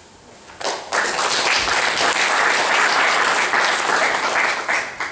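Audience applauding, starting about half a second in and stopping near the end.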